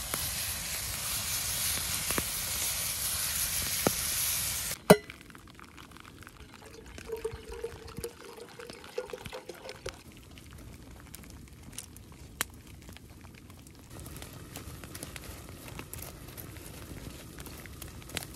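Meat sizzling loudly in a frying pan over a campfire, cut off suddenly about five seconds in. Then water is poured from a plastic bottle into a metal flask, followed by faint crackling and ticks from the fire.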